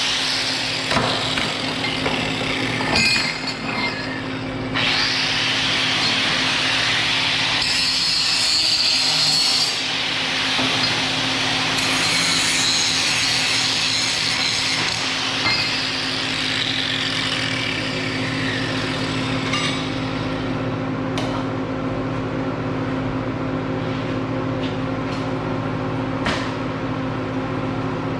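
Electric power tool working metal: a steady motor hum under stretches of harsh cutting noise that come and go over the first twenty seconds, then a lighter run with a few sharp clicks.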